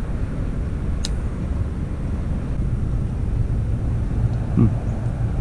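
Steady low outdoor rumble, with a single sharp click about a second in and a brief low vocal sound near the end.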